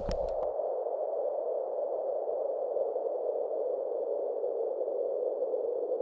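A steady, even droning noise laid in as an added sound effect, with two faint steady high tones above it.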